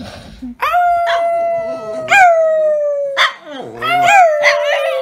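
French bulldog howling in long drawn-out notes: one long howl of over two seconds with a brief upward lift partway, then a shorter, wavering howl near the end.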